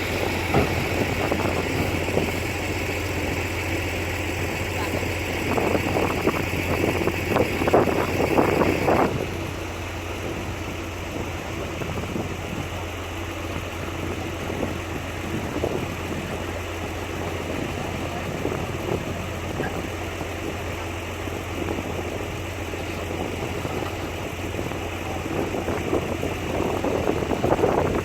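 Heavy diesel earthmoving machinery running with a steady low engine drone. It is louder and busier, with a higher whine, for roughly the first nine seconds, then settles to a quieter, steadier run.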